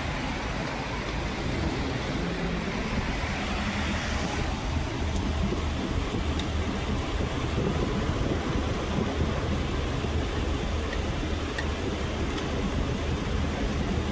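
Car engine idling steadily, with a few faint clicks over the running.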